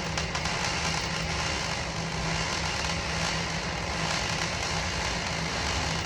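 MIG welder laying a continuous bead, a steady sizzling crackle of the arc with a low hum beneath.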